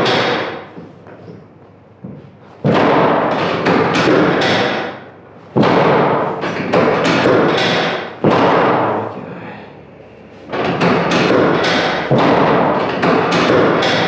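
Chiropractic drop table's lower-back section dropping a couple of centimetres under a hand thrust: four sudden loud thuds, two to three seconds apart.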